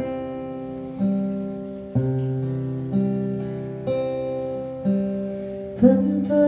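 Acoustic guitar strumming chords, one chord about every second, each ringing out and fading before the next.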